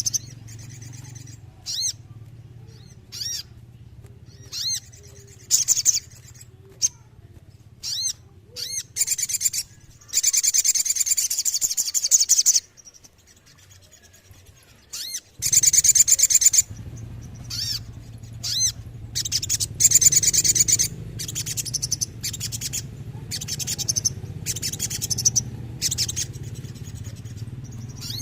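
A sogon (sogok ontong) bird singing: short, sharp, high chirps repeated at irregular gaps, broken three times by long fast rolling trills, over a low steady hum.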